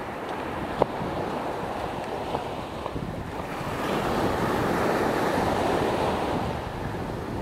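Small waves breaking and washing up a sandy beach, the surf swelling louder about halfway through, with wind buffeting the microphone. A single sharp click about a second in.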